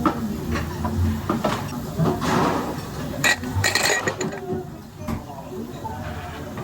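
Scattered light clinks and knocks of small hard objects, over a busy background of voices.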